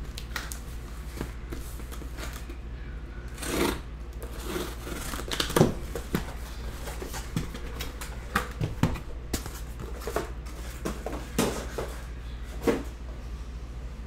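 Scissors cutting through packing tape and a cardboard box, in a run of irregular scraping cuts and rustles, some of them sharp and louder.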